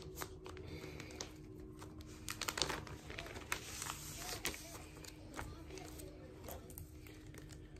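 Crinkling and rustling of a clear plastic outer sleeve and cardboard gatefold album jacket as a vinyl LP is worked back into its sleeve, with scattered taps and scrapes, the loudest a little over two seconds in.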